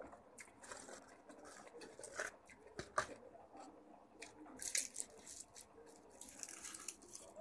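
Close-up eating sounds: wet chewing and lip smacks with a few sharp mouth clicks, then crackling as a sheet of seaweed is bitten, about five seconds in and again near the end.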